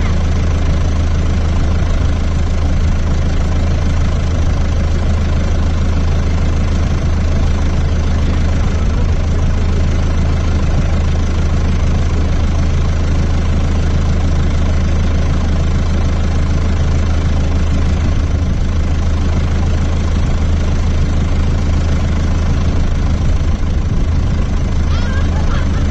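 John Deere 6400 tractor's four-cylinder turbo diesel engine running at a steady speed, with a deep, even hum.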